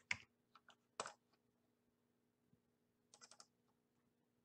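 Faint computer keyboard typing: a few scattered keystrokes, one sharper click about a second in, then a quick run of four or five keystrokes a little after three seconds.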